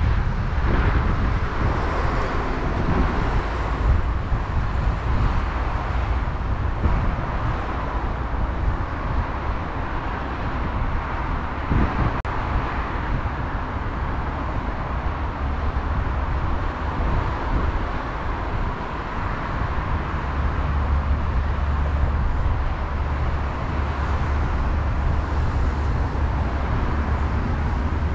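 Steady outdoor background noise: a low rumble with a hiss over it, like distant road traffic mixed with wind on the microphone, with one short click about twelve seconds in.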